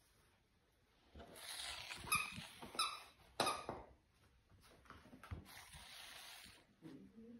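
A dachshund puppy chewing a plush squeaky toy, giving a few short squeaks in quick succession about two to three and a half seconds in, amid soft rustling.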